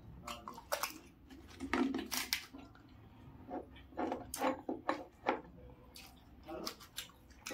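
Crisp fried pani puri shells being cracked open by a thumb and stuffed with filling scooped by hand from a ceramic bowl: a run of short, irregular crackles and clicks.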